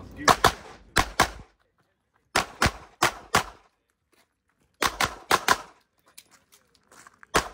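Handgun shots fired rapidly during a USPSA practical-shooting stage: about a dozen sharp shots in quick clusters of two to four, with gaps of about a second between clusters as the shooter moves to new positions.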